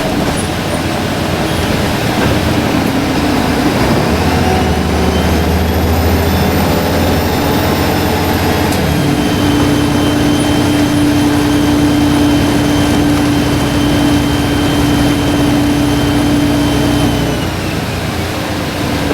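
Volvo B7RLE bus's 7-litre six-cylinder diesel pulling under load, with a high turbo whistle that rises about four seconds in and drops near nine seconds as the engine note changes. A second, lower whistle then holds steady until it fades near the end.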